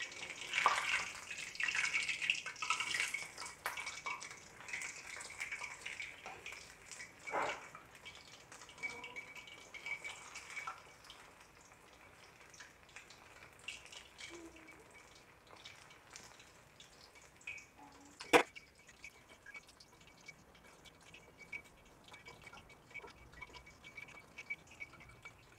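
Chicken pieces deep-frying in hot soybean oil in a karahi, just turned onto their other side: a crackling sizzle that is busier in the first few seconds, then settles to a fainter steady crackle. There is one sharp click about eighteen seconds in.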